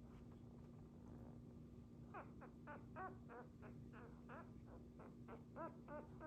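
Dachshund puppy whimpering: a rapid run of short, high-pitched squeaky cries, about three a second, starting about two seconds in and getting louder toward the end, over a faint steady hum.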